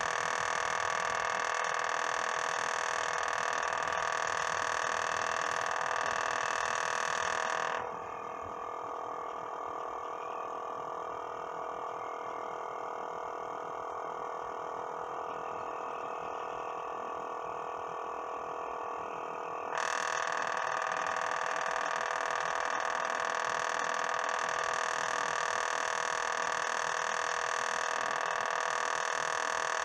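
Samsung Zipel refrigerator running with a loud, steady mechanical buzzing hum made of several tones: the compressor noise problem the owner sets out to fix. The higher part of the noise cuts out suddenly about eight seconds in and comes back just as suddenly some twelve seconds later.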